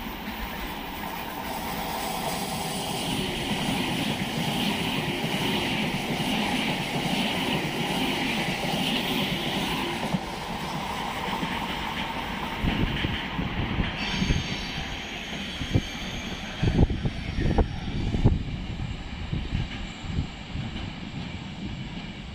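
Frecciarossa ETR400 high-speed electric train passing: a rising rush of wheel and rail noise with a hiss on top, easing off after about ten seconds as it draws away. About 13 to 18 seconds in comes a run of low thumps and gusts.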